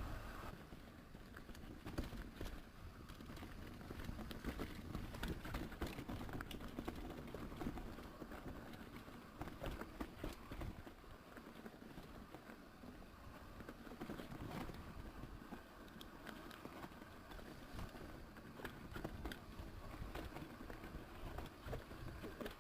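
Mountain bike rolling over a rough dirt trail: tyres on dirt and stones, with a constant, irregular patter of rattles and clicks from the bike.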